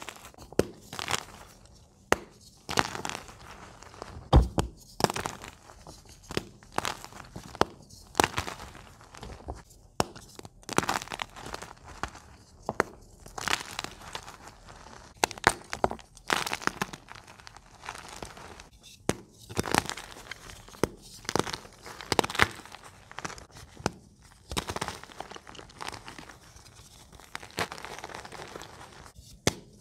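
Blocks of gym chalk crumbled and crushed between fingers close to a microphone: dry, crunchy crackles of chalk breaking into powder, coming in irregular squeezes about one or two a second, with one louder knock about four seconds in.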